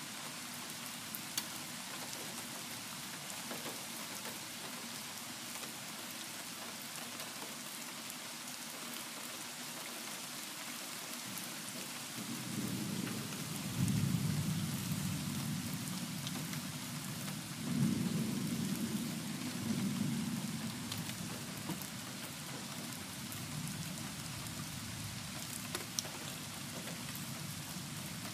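Steady rain falling throughout. About halfway through, thunder rolls in as a low rumble that swells twice and dies away over several seconds.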